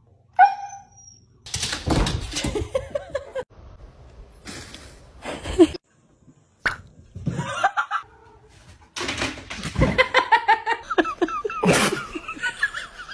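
Several short clips cut together: brief animal cries and people laughing, with the laughter running in quick repeated bursts through the second half.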